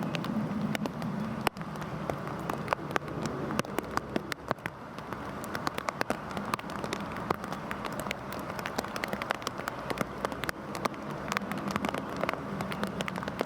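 Heavy rain falling steadily, many separate drops ticking sharply on a hard surface over a dense hiss. A low hum runs underneath at the start and again near the end.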